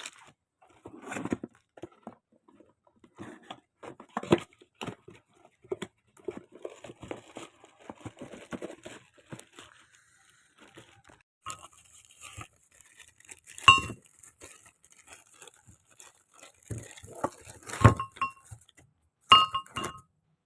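Hand tools and small metal parts being handled: scattered clicks, knocks and scrapes, with three sharp ringing metallic clinks in the second half.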